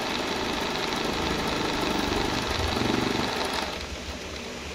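Domestic sewing machine running at speed, stitching a buttonhole with a fine, dense zigzag, then stopping about three and a half seconds in.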